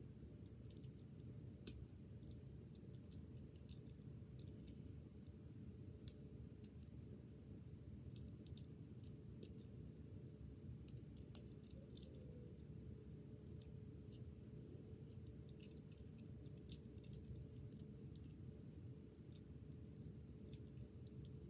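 Faint, irregular plastic clicks and snaps of a Rubik's Cube's layers being turned by hand, over a low steady hum.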